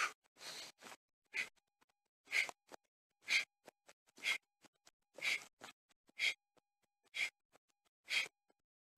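A man breathing out hard about once a second, each a short huff, with faint ticks of his feet landing in between, from the exertion of star jumps late in a HIIT set.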